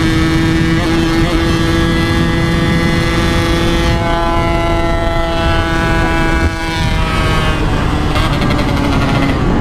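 Yamaha RX King's single-cylinder two-stroke engine running at steady high revs under way, with wind rushing over the microphone. About six and a half seconds in the revs dip briefly, then it settles at a slightly lower steady pitch.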